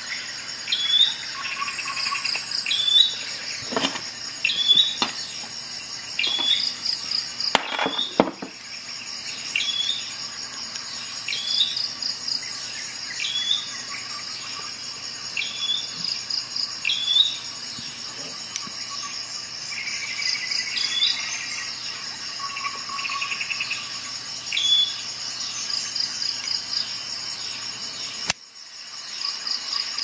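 High, insect-like chirps repeating about once a second over a steady high trilling, with a few light clicks and knocks from tools being handled, the clearest about 4 and 8 seconds in.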